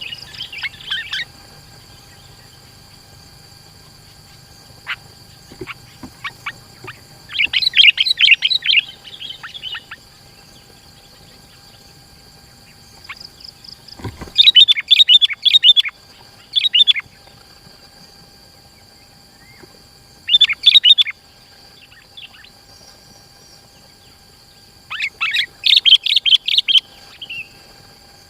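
Sooty-headed bulbul (kutilang) singing in short bursts of rapid chirping notes. There are about five bursts, each a second or two long, with pauses of a few seconds between them.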